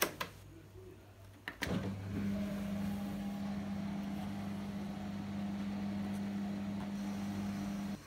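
Clicks from the Indesit dishwasher's program dial and buttons, then about two seconds in its pump motor starts and runs with a steady low hum as the wash cycle begins.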